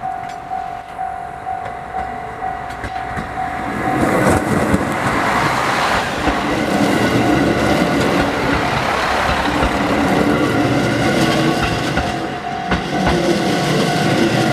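Level crossing warning bell ringing steadily as a four-car diesel railcar train (KiHa 40 and KiHa 150 coupled) passes over the crossing. About four seconds in, the train's running noise and wheels clattering over the rail joints rise loud and stay.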